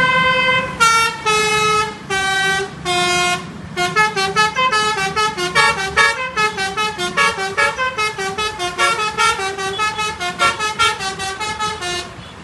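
Bus telolet (basuri) musical horn playing a tune: a few long held notes, then a fast run of short, quickly alternating notes that ends suddenly near the end.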